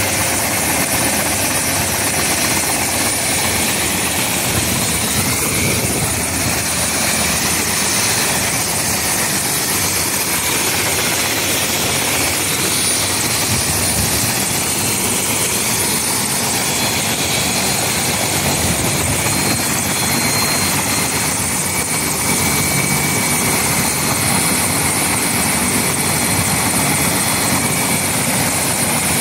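Light turbine helicopter running on the ground with its main rotor turning: steady rotor noise with a thin, steady high whine over it.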